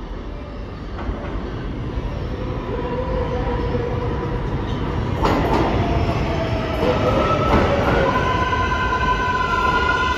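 New York City subway train coming through the station, its rumble growing louder, with several steady whining tones that set in partway through and a few sharp clunks over the rails.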